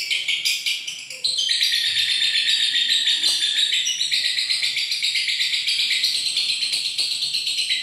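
Lovebird chattering in a long, fast, unbroken trill of chirps (the 'ngekek' song). It dips briefly about a second in, then picks up again and runs on without a pause.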